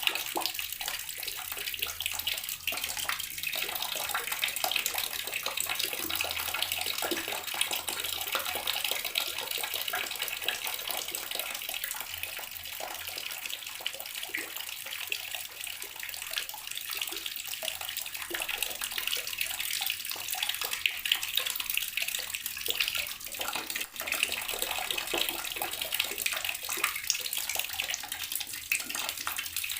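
Water running steadily from a tap, a continuous bright hiss of falling water that does not stop or change.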